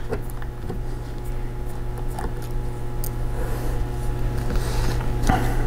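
A few faint, light clicks of a small Phillips screwdriver and screws on a metal laptop hard drive caddy as its mounting screws are taken out, over a steady low hum.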